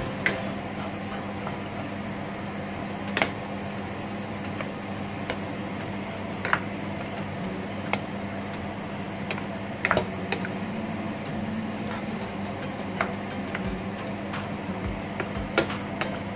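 Chicken pieces sizzling and crackling in hot oil in a frying pan, with a few sharper knocks of a wooden spatula against the pan as they are stirred. A steady low hum sits underneath.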